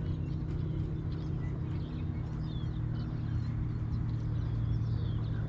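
Steady low motor hum, with small birds chirping over it.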